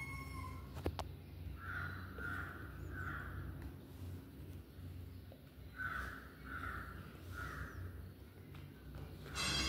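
A crow cawing in two bouts of three short, rough caws. There is a sharp click about a second in.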